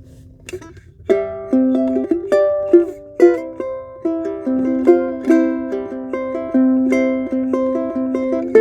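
Martin 3M Ditson dreadnought-body ukulele strung with Aquila B-Black strings, played fingerstyle. A held note fades away over about the first second, then a melody of plucked single notes and chords begins.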